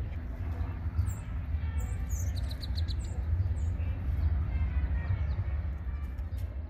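Small songbirds chirping and calling, with a quick run of about five high notes about two and a half seconds in, over a steady low rumble.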